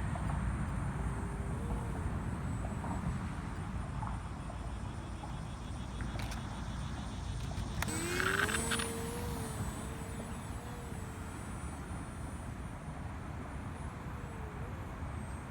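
Electric motor and propeller of a small foam RC bush plane (Power Pack F motor) whining in flight, its pitch wandering with throttle and distance and gliding up about eight seconds in. Wind rumbles on the microphone throughout.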